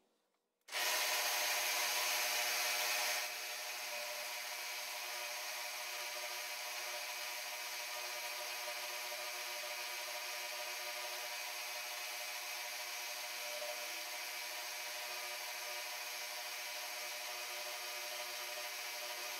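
Milling machine spindle running with a long end mill side-cutting the bosses of a small metal part: a steady whine of several tones over the hiss of the cut. It starts abruptly about a second in and is louder for the first couple of seconds before settling.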